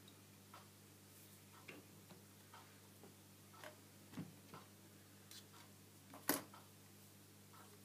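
Faint, scattered clicks and taps of small wooden toy parts being handled and fitted together on a workbench, with a sharper knock about six seconds in and a duller thump a little before. A faint steady low hum runs underneath.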